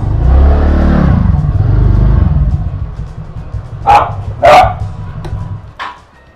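TVS Ntorq 125 scooter's single-cylinder engine running at low speed, then dying away and stopping near the end. A small dog barks twice, sharply, about four seconds in.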